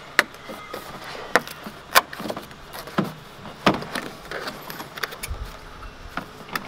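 Cardboard product boxes being handled and opened by hand: an irregular series of sharp cardboard taps and clicks with rustling between.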